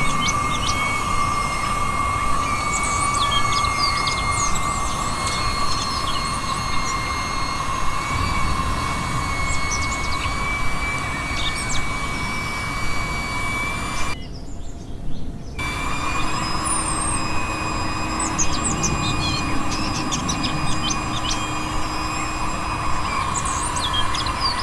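Max Pump 2 portable electric air pump running steadily, a constant motor whine over the rush of air, while birds chirp in the background. The pump sound cuts out for about a second and a half around 14 seconds in, then resumes.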